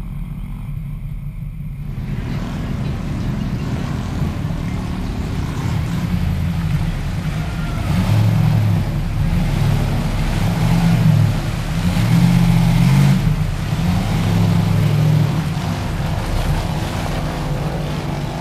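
Chevy Silverado 2500's 6.0-litre V8 on open exhaust revving hard and unevenly as the truck works through deep mud, its pitch rising and falling, loudest in surges through the middle.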